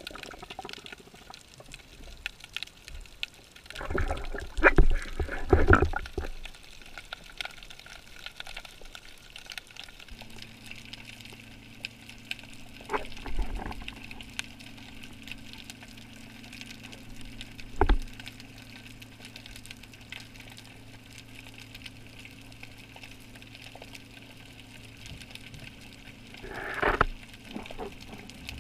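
Underwater action-camera audio of a spearfishing dive: water splashing and bubbling around the camera as the diver goes under, then muffled underwater ambience with a steady low hum and a few sharp clicks.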